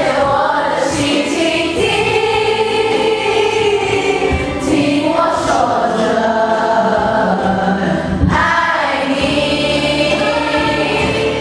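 Karaoke singing into a microphone over a pop backing track.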